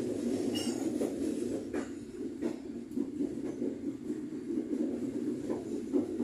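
Local passenger train running along the track: a steady rumble, heard from the rear of the train, with a few short sharp clicks from the wheels scattered through it.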